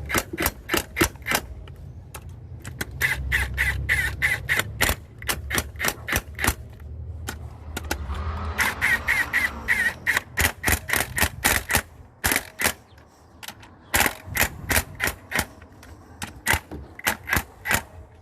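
Hyundai Terracan on rough off-road ground: rapid, irregular knocks and clatter from the body and suspension over a low engine rumble, with two bouts of quick squeaking.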